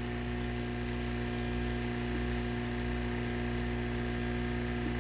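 Electric heat gun running steadily, a constant blowing hiss over a low hum, used to soften the adhesive under the glass.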